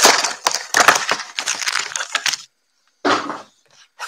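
Crackling, rustling handling noise close to the microphone as a hand works at the table, dense with sharp crinkles. It cuts out abruptly about two and a half seconds in, then comes back in one short burst.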